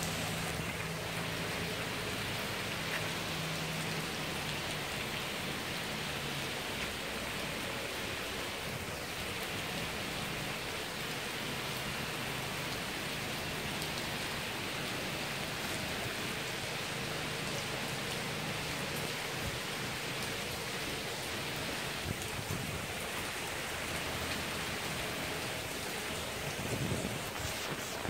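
Heavy rain pouring steadily onto pavement, a flooded street and trees.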